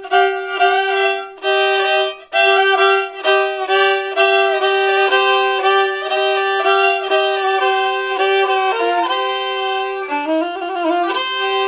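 Black Sea kemençe played with short bow strokes in Görele style: a melody steps up and down over a steady drone note held on a neighbouring string, with brief breaks between phrases.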